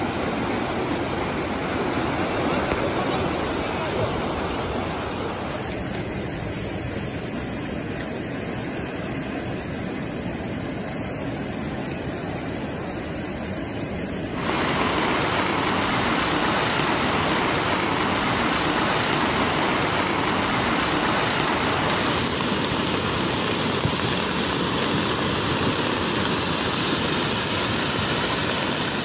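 Fast-flowing floodwater rushing: a steady, dense hiss of moving water that shifts abruptly in tone three times and gets louder about halfway through.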